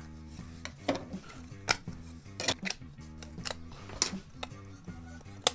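Sharp clicks and clacks of a red-and-white plastic Raspberry Pi case as its parts are pulled apart and handled, about six in all, over background music.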